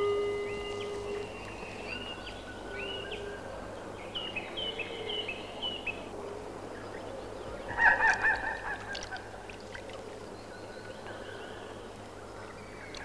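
Wild birds calling: a run of short, high chirps and whistles, then about 8 s in a louder, lower call of several pulses lasting about a second.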